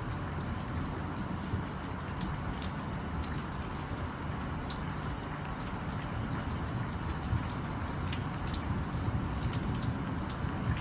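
Steady rain falling, with many separate drops ticking sharply on a nearby surface.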